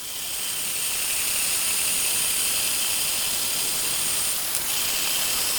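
A high-speed electric power tool working a piece of steel stock. It spins up over the first second, then runs steadily with a high whine over a hiss.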